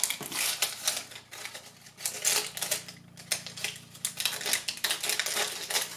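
Thin clear plastic wrapping crinkling and crackling in quick, irregular bursts as it is pulled and peeled off a fashion doll's legs by hand.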